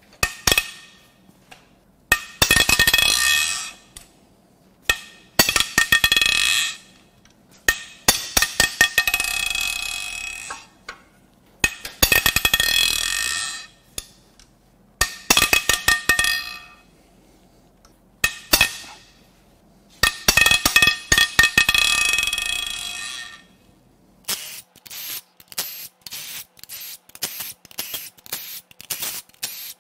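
Red cordless power tool spinning out cylinder head bolts on a Mini Cooper S N14 engine, in about seven runs of one to three seconds of motor whine, each started by sharp clicks. Near the end comes a fast series of clicks.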